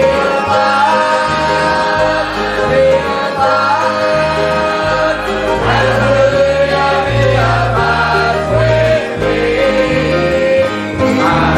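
Congregational gospel singing: a group of voices singing a hymn over instrumental accompaniment with a walking bass line.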